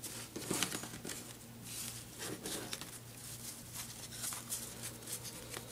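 Trading cards and card-pack wrappers being handled by hand: irregular soft rustling with small clicks and taps as cards are stacked and moved.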